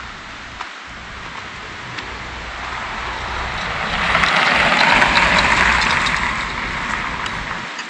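A vehicle passing by: a rushing noise that swells to a peak about five seconds in and fades away.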